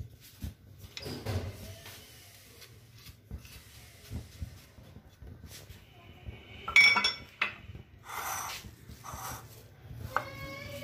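Dishes clinking and a silicone spatula scraping as spices are tipped off a plate into a bowl, with a sharp, ringing clink about seven seconds in.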